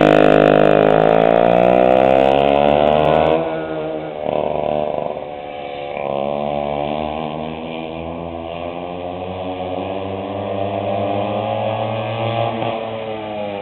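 Early-sixties McCulloch 100cc two-stroke chainsaw engine powering a 1961 Bug Wasp go-kart, running hard with its pitch dipping and climbing again. About three and a half seconds in it gets noticeably quieter, and after that the revs rise and fall slowly, with a brief dip near the end.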